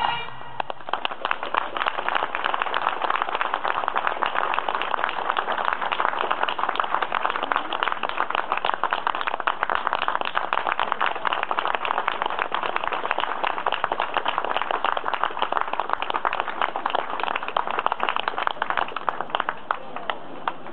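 Crowd applauding steadily at the end of a Breton pipe band's tune, many hands clapping without a break.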